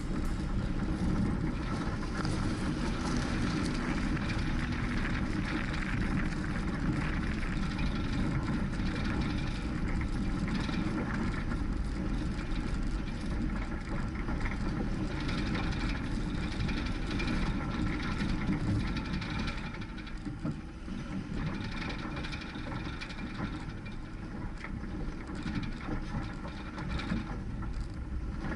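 2003 Nissan Frontier pickup driving on a dirt trail: steady engine rumble with tyre and road noise.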